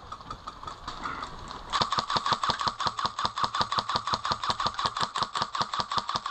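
An airsoft rifle firing one long full-auto burst of rapid, evenly spaced shots. The burst starts about two seconds in and runs for about five seconds.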